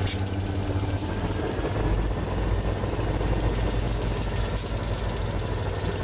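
Freight train rolling past: a steady low rumble of the cars with continuous fast rattling and clicking from the wheels and car bodies.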